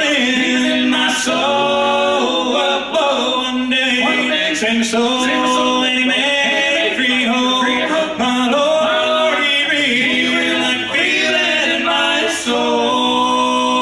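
Male voices singing a bluegrass gospel song in close harmony on long held notes, with banjo, acoustic guitar and upright bass underneath.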